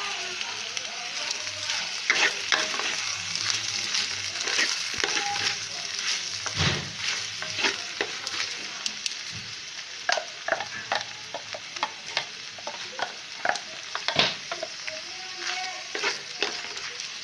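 Chopped mixed vegetables and a freshly added spice paste sizzling as they fry in oil in a pan. A steady hiss runs under it, and a wooden spatula scrapes and knocks against the pan again and again as the mix is stirred.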